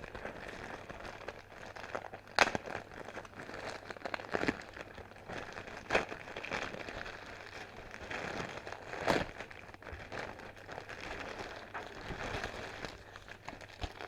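A package being opened by hand: continuous crinkling and rustling of packaging, with three sharper snaps or knocks along the way.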